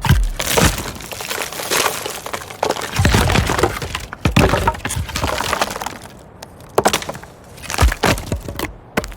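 A series of wood cracks and splintering breaks, one after another, several with a deep thud, and a longer crackling break about three seconds in.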